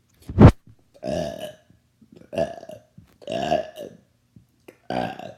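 A person burping again and again: four drawn-out, pitched burps about a second apart. A sharp, very loud thump comes just before them, about half a second in.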